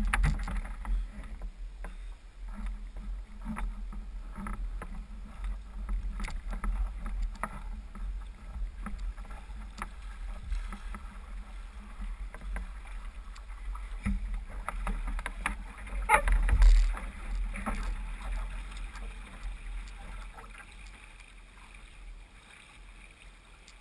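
Low wind rumble and handling noise on a camera mounted on a model floatplane: knocks and rustles as the model is carried and set on the water, with a louder bump about 16 seconds in.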